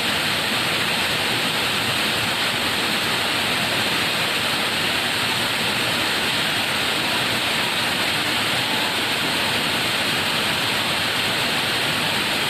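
Waterfall: a steady, even rush of falling water, loud and unchanging, with most of its energy in the hissing upper range.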